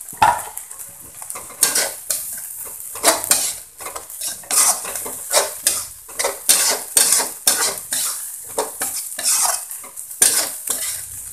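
Metal spatula scraping and knocking against a metal wok in repeated stir-fry strokes, roughly one or two a second, over a steady sizzle of vegetables frying on low heat.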